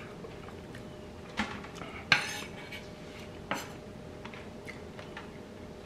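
Cutlery clinking against dishes: three sharp clinks about a second apart, the middle one loudest and briefly ringing, with a few lighter taps between.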